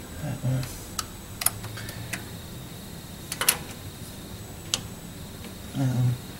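Click-type torque wrench clicking as bolts on a Vortec 5.7 small-block are brought to 132 inch-pounds in sequence: sharp single clicks a second or two apart, with two short low hums, one about half a second in and one near the end.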